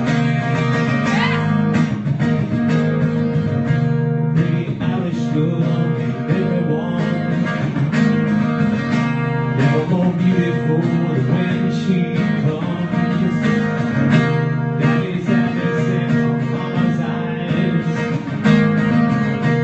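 Acoustic guitar strummed through a live PA, playing a song that was requested on the spot.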